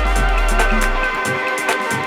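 Electronic background music with a steady beat, held synth notes and a deep bass note that fades out about a second in.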